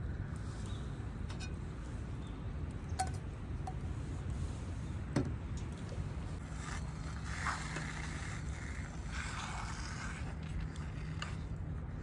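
A small gas canister stove burns steadily under an aluminium pot, a constant low rumble, with a few light clicks and knocks of cookware. A stretch of hiss sets in about six and a half seconds in and fades about ten seconds in.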